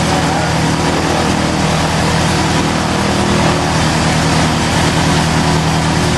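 Van's RV kit aircraft's piston engine and propeller running steadily on the ground during its first engine run, a steady low pulsing with no change in speed.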